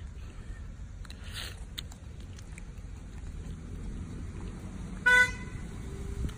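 A single short vehicle horn toot about five seconds in, one flat, steady note, over a steady low background rumble.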